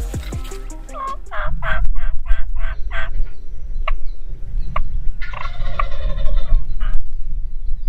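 Turkey gobbling: a fast rattling run of about six notes starting about a second and a half in, and a second, shorter gobble past the middle. A low wind rumble on the microphone runs underneath.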